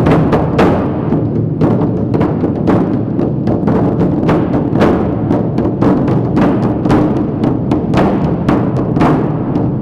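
Percussion music: drums and other struck percussion playing together, many irregular strikes over a dense, steady low ringing.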